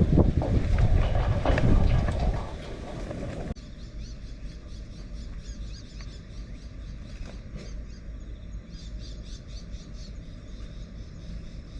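Typhoon wind buffeting the microphone in hard gusts, cutting off suddenly about three and a half seconds in. After that it is much quieter: insects chirping in rapid repeated pulses over a low steady rumble.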